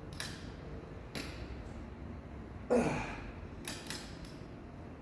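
A centre-lock wheel nut being cracked loose with a large torque wrench: a few separate knocks and clicks, with a louder creak that falls in pitch about three seconds in.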